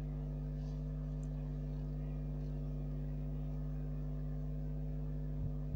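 Steady low electrical buzz of mains hum from the television and VCR as a silent logo card plays, with no music or speech. A few soft low bumps come in near the end.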